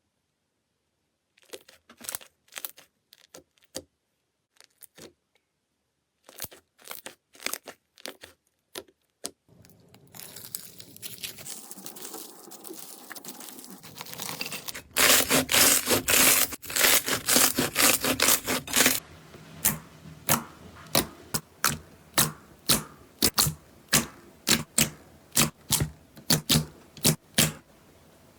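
Slime being handled close to the microphone: scattered sharp clicks and pops, then a steady crackling hiss that swells into a loud, dense crackle about halfway through. After that comes a run of evenly spaced sharp crackles, about two a second.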